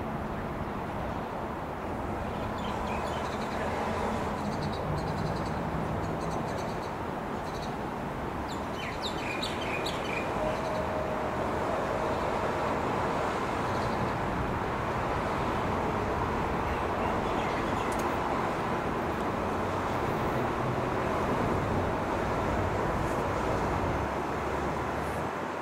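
Steady street traffic noise with birds chirping, the chirps mostly in the first ten seconds or so.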